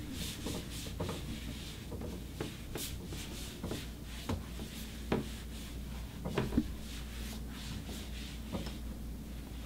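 Cloth wiping plastic chair seats and backs: repeated rubbing strokes with scattered clicks and a few knocks, the loudest about five seconds and six and a half seconds in.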